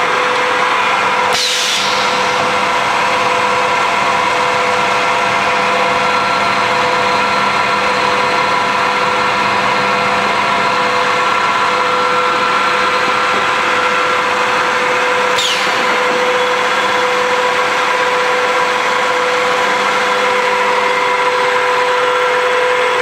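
Electric motor-driven machine running with a steady hum and whine of several constant tones. Twice, about a second and a half in and again about fifteen seconds in, a brief sharp sound with a quickly falling high pitch cuts through.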